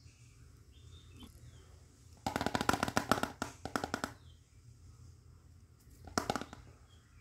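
Plastic toy frying pan and its lid clattering as they are handled: a quick run of clicks for nearly two seconds from about two seconds in, then a short burst of clicks near the end.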